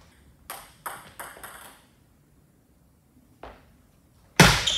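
Celluloid-type table tennis ball bouncing: a quick run of about five light bounces in the first two seconds, a pause, a single tap about three and a half seconds in, then a loud sharp hit near the end as the serve is played.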